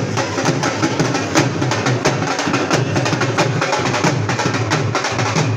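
Loud music driven by fast, steady drumming.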